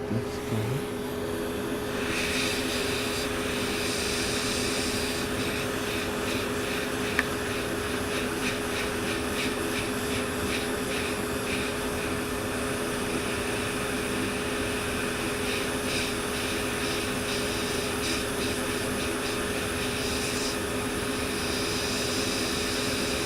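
Hot air rework station and fume extractor running, a steady rush of blown air over a low fan hum, as hot air is played on a chip to desolder it from a MacBook Air logic board. The air noise gets stronger about two seconds in, and there is a single tick about seven seconds in.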